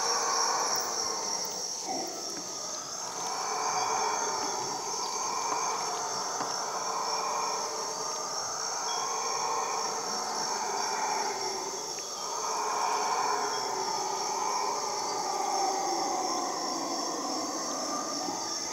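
A chorus of howler monkeys howling in long swelling and fading waves, over a steady high buzz of insects.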